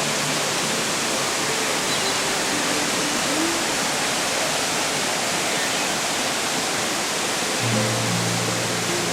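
Steady rush of a waterfall, with soft background music under it, whose low held notes come in again near the end.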